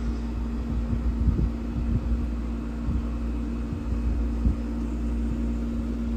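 Vintage Gibson window air conditioner running a few seconds after start-up: a steady hum over a low rumble, with a few short low thumps scattered through.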